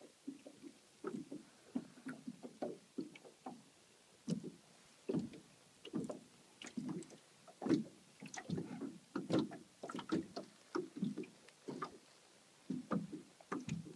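Small waves lapping and slapping against the hull of a small boat: irregular short splashes and knocks, one or two a second.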